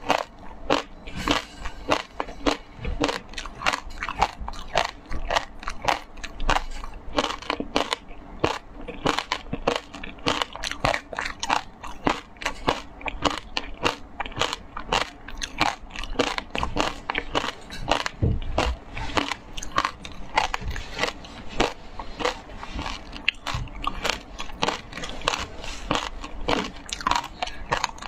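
Close-up chewing and crunching of frozen shaved ice with passion fruit: a quick, uneven run of crisp crunches as the ice is ground between the teeth.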